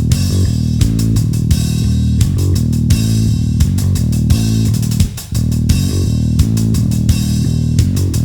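Rock background music: bass guitar and guitar over a steady drum beat, with a brief break about five seconds in.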